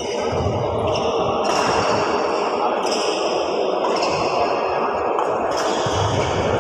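Badminton rally: rackets striking a shuttlecock about four times, sharp hits roughly a second or so apart that echo in the large hall, over a steady background noise.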